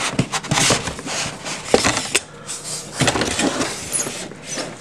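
Plastic packing wrap crinkling and rustling, with irregular clicks, scrapes and knocks of foam and cardboard packing as a boxed electronics unit is lifted out of its box.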